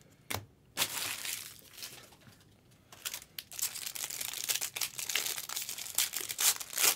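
A trading card pack's wrapper crinkling and tearing as it is opened by hand: a steady run of crackles and sharp crinkles, loudest near the end.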